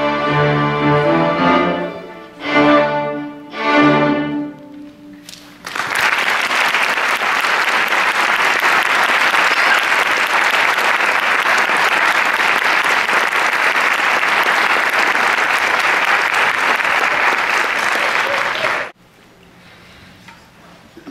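A children's string orchestra of violins and cellos ends a piece with held chords and two short final chords, then the audience applauds steadily for about thirteen seconds before the clapping stops suddenly.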